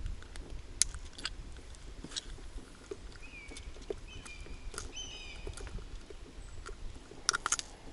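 Scattered light clicks and taps over a low rumble, with a few short chirping calls from a small bird in the middle, one falling in pitch.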